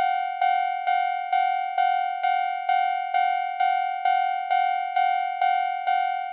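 Japanese railroad crossing warning bell ringing steadily with the "kan-kan" sound, one bright bell tone struck at an even beat of about two strikes a second, each ringing on into the next.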